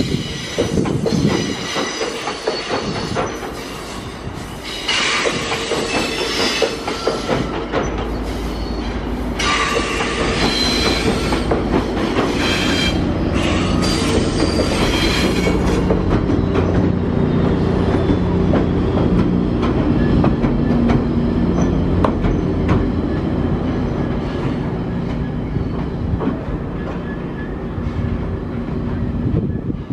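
Commuter train of bilevel coaches passing close by, wheels squealing and clattering on the rails. In the second half the diesel locomotive pushing at the rear goes past with a steady engine drone.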